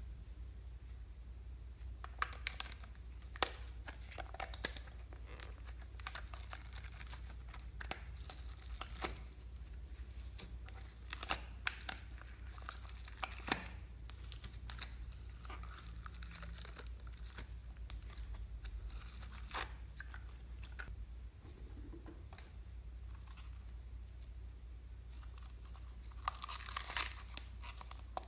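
Slime being worked by hand, squeezed and stretched, giving scattered sticky crackles and pops, with a denser run of crackling near the end.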